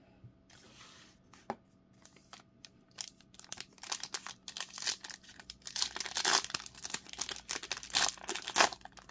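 Foil wrapper of a Topps Chrome Sapphire Edition trading-card pack being torn open and crinkled by hand. Quiet at first apart from a single click, then the crackling tear grows louder from about three seconds in, with the loudest rips near the end.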